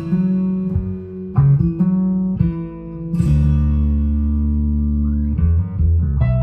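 Music playing back loud through RadioShack RCA Optimus STS-1230 floor-standing speakers with stock drivers and upgraded crossovers: a guitar-led song with steady bass notes and plucked chords, turned up to test how the cheap drivers cope at volume.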